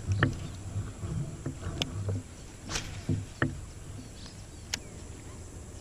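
Handling noise from a plastic kayak and a baitcasting rod and reel as a topwater frog lure is worked: scattered light clicks and a few low knocks against faint outdoor background.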